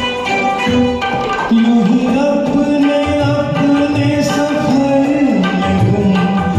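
Hindi film song karaoke backing track with tabla, and a man singing the melody in long held notes over it, beginning about a second and a half in.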